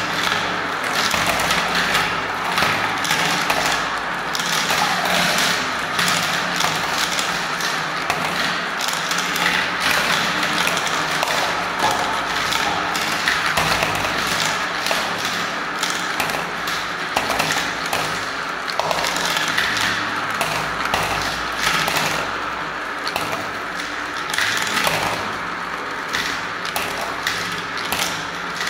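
Glass marbles and plastic balls rolling and clattering around a plastic swirl-funnel bowl of a marble run and dropping into a tray of balls below: a continuous dense rattle of many small clicks and taps.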